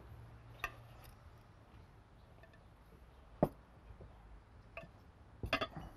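A few sharp clicks and clinks of metal tongs against serving dishes as grilled chicken is handled, the loudest about three and a half seconds in and a quick cluster near the end, over a low steady hum.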